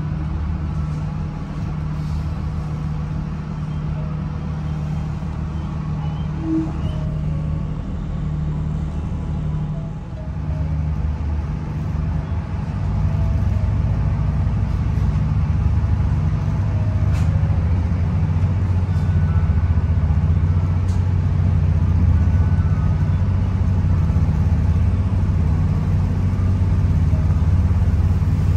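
Diesel commuter train heard from inside the carriage: the engine runs with a steady low hum, dips briefly about ten seconds in, then grows louder from about twelve seconds in as the train picks up speed.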